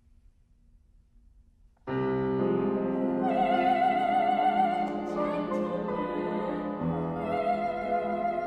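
Near silence, then about two seconds in a Steinway grand piano begins to play, and a soprano enters about a second later singing an opera aria with a wide vibrato over the piano accompaniment.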